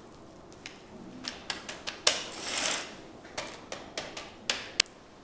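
Silicone spatula tapping and pressing cracker dough on a Teflex-lined dehydrator tray: a run of irregular light taps and clicks, with a short scrape about two seconds in, just after the loudest tap.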